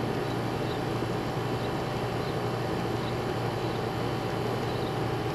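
Residential AC condensing unit running steadily, compressor and condenser fan giving a constant low hum. The compressor is running again on a newly replaced run capacitor, the old one having tested dead on the compressor side.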